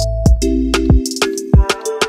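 Background music with an electronic beat: deep kick drums that drop in pitch, hi-hat ticks and held synth notes over a bass line.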